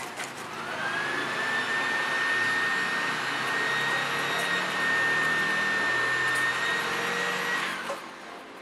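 Small handheld motor-driven air tool running steadily with a high whine, used to clean solder residue off a circuit board. The motor spins up about half a second in and winds down near the end.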